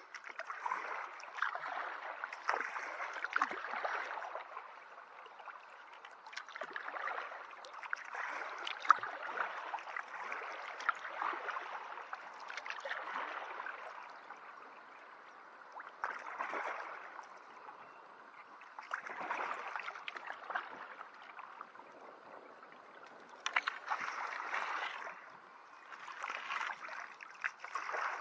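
Kayak paddle strokes in calm water: a swell of splashing and dripping every three to four seconds as the blade dips and pulls, with small sharp clicks of drops between.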